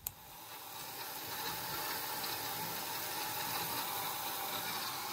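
Water running steadily from a bathroom sink faucet in a thin stream, splashing into the ceramic basin and drain. It begins with a short click.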